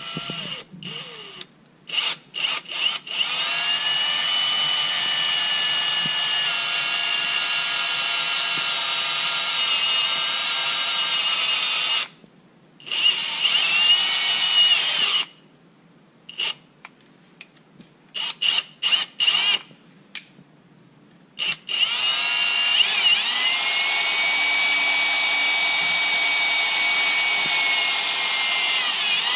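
Electric drill enlarging the holes in a winch wiring harness's end terminals so they fit over the battery bolts. It runs in short trigger blips and several longer steady runs of a few seconds, the longest one near the end.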